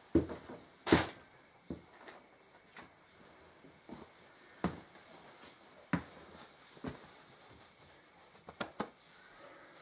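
Irregular knocks, clicks and clatters of tools and small metal parts being picked up and put down while rummaging for a mislaid exhaust bolt, about a dozen in all. The loudest comes about a second in, and a quick cluster of three falls near the end.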